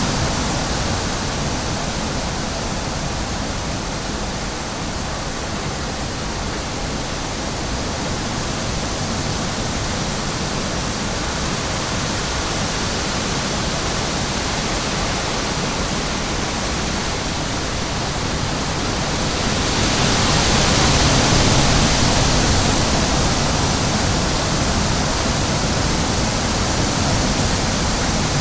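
Steady rushing noise, like wind or running water, that swells louder for a few seconds about twenty seconds in.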